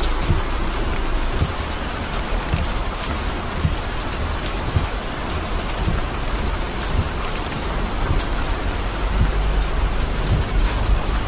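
Rain falling on a moving car's windshield and body, many small drop impacts over a steady hiss, with a constant low rumble from the car on the wet road.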